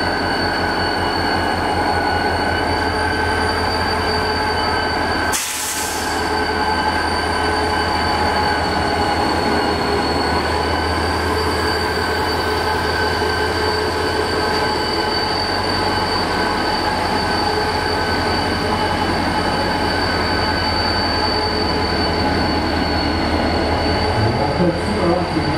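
EMD GT26MC diesel-electric locomotive, with a 16-cylinder two-stroke diesel, moving slowly past close by. The engine's low pulsing rumble runs under a steady high-pitched whine, with a brief break about five seconds in.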